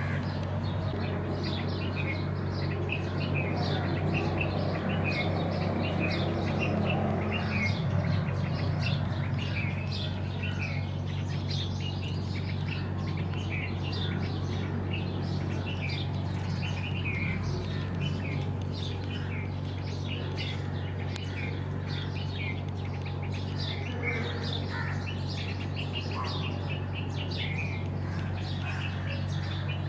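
Birds chirping in many short, repeated calls over a steady low hum.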